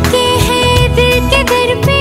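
Bollywood film song music: a melodic line that bends and wavers in pitch over a steady bass and a regular beat.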